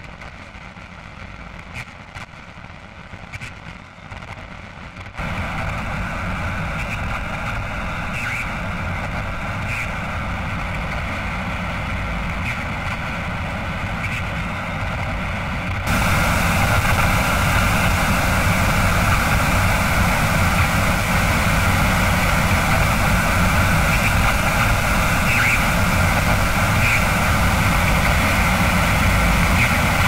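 Blended TV static and glitch sound effects: a steady hiss with a low rumble underneath and scattered crackles. It steps up louder about five seconds in and again about halfway through.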